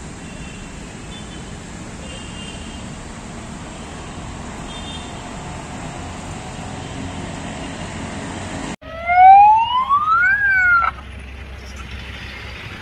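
Steady outdoor background noise. About nine seconds in, after an abrupt cut, a fire brigade siren winds up in a loud rising wail for about a second and a half, dips and cuts off.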